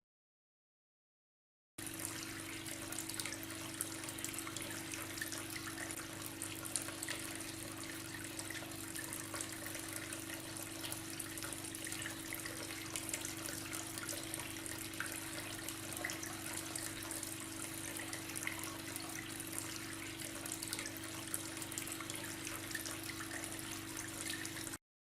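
Water trickling and splashing steadily in a small homemade tabletop fountain, with a steady hum beneath it. The sound comes in after about two seconds of silence.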